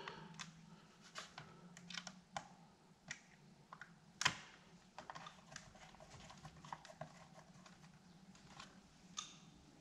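Small screwdriver and plastic CPAP machine parts clicking and tapping as they are handled and fitted together: scattered light clicks, with one sharper click about four seconds in.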